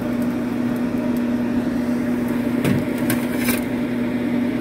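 Steady hum of a Pit Boss vertical pellet smoker running. About two and a half and three and a half seconds in come two brief metal clatters, from steel tongs and an aluminium sheet pan as a rack of ribs is lifted out and set down.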